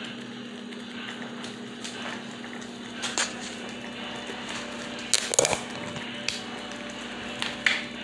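A few short clicks and knocks of kitchen handling around a frying pan, the loudest a quick cluster about five seconds in, over a steady low hum.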